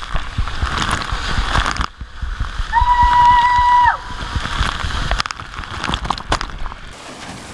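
Water splashing and sloshing at the bottom of a water slide, with scattered knocks, and a steady beep held for about a second near the middle.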